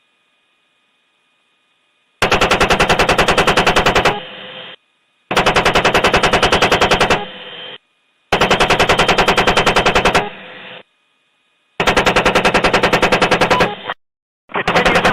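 AH-64 Apache's 30 mm M230 chain gun firing in bursts of about two seconds, each a fast, even run of shots about ten a second, with a short fading tail after each burst. Four bursts follow one another a second or so apart after about two seconds of near silence, and a fifth starts near the end.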